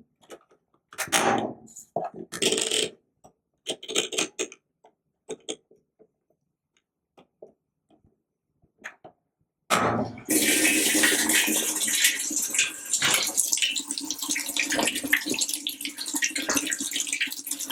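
Scattered small clicks and clatters, then, about ten seconds in, water starts running in a steady loud rush.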